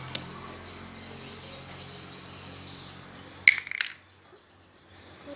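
A brief clinking rattle of small hard objects about three and a half seconds in, the loudest sound here, with a single small click near the start, over a steady background hum and high hiss.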